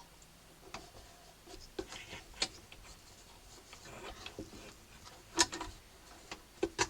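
Scattered small clicks and taps, with light rubbing, as a treble coupler slide on a Hohner Arietta accordion is worked onto the small rod of the register mechanism. The sharpest clicks come about two and a half and five and a half seconds in, and twice more near the end.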